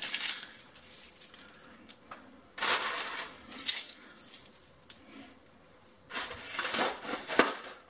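Frozen basil leaves being crushed and crumbled by hand, making crackly, crinkling rustles in several short bursts, the longest near the end.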